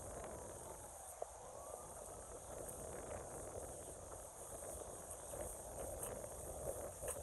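Quiet outdoor ambience: a steady background hiss with a high, steady insect drone, and a few faint clicks.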